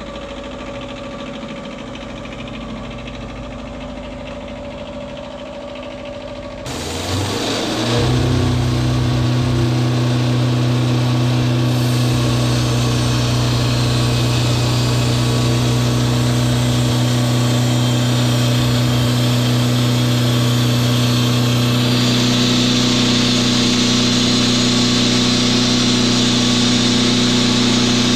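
Portable band sawmill's engine running, then throttled up about seven seconds in and held at a steady, louder speed.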